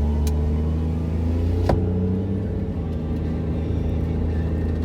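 A car driving: steady low engine and road rumble, the engine note climbing slowly. Two sharp clicks, one just after the start and one about a second and a half later.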